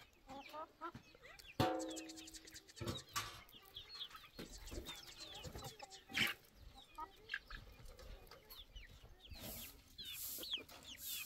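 Flock of hens clucking as they are fed grain, with short calls throughout and one louder call about one and a half seconds in.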